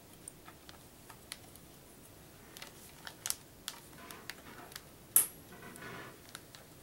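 Light plastic clicks and ticks as drive parts are handled and tool-less drive-bay retainer knobs in a computer case are turned. There is some rustling, and one sharp click about five seconds in.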